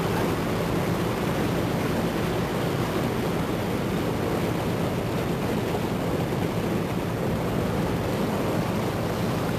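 Motor cruiser's engine running steadily under way, a constant low hum, with wind and water noise over it.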